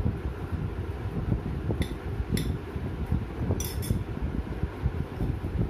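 A metal spoon knocking against a cut-glass bowl while flour is tipped out, giving four short clinks around two to four seconds in, over a steady low background rumble.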